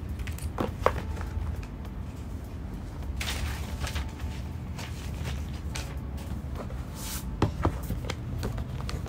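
Cardboard and paper packaging of an iPad box being handled: paper inserts rustle and slide, with a few sharp taps and knocks of cardboard about a second in and again near the end, over a steady low hum.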